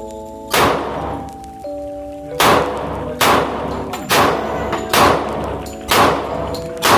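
Background music with seven sharp bangs, mostly about a second apart. They are shots from a Glock 36 pistol in .45 ACP, each with a short ringing echo.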